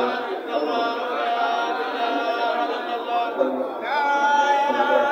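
A man's voice chanting a religious Islamic chant with long drawn-out, wavering notes. A new held note rises in about four seconds in.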